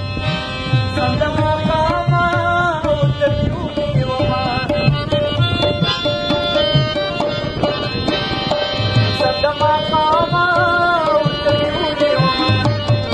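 Tabla and harmonium playing a Pashto ghazal: the tabla keeps a steady rhythm of strokes while the harmonium carries the melody.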